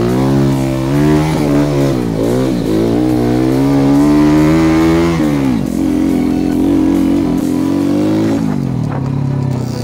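Trail dirt bike engine under hard throttle, revs rising and falling repeatedly, climbing for a couple of seconds before dropping sharply about halfway through, then running steadier.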